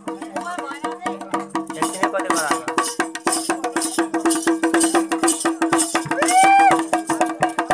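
Deuda folk dance music: a hand drum beaten in a fast, steady rhythm under a group's voices. About six seconds in, a long high call rises and holds for about half a second, the loudest moment.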